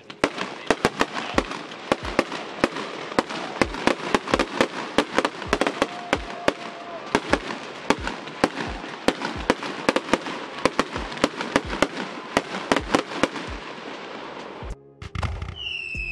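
Fireworks crackling: a fast, irregular stream of loud sharp pops over a continuous crackle of bursting stars. Near the end it cuts off suddenly and is replaced by a steady whistle over a low rumble.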